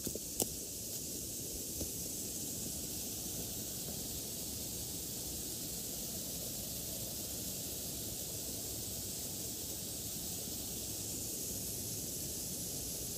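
Steady outdoor hiss with a few footsteps in the first two seconds, then the walker stands still.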